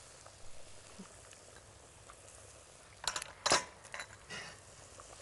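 Kitchenware being handled on a counter: a few sharp clinks and knocks about three seconds in, the loudest a little after, with two lighter taps following, over a faint steady background.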